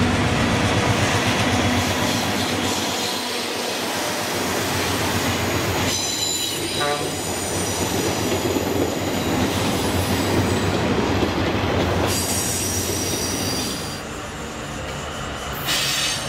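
Alco RS-3 diesel locomotive and its passenger coaches passing close by, the engine running and the wheels clattering over the rails. Wheel flanges squeal in high tones about six seconds in and again around twelve to fourteen seconds. A brief hiss comes near the end.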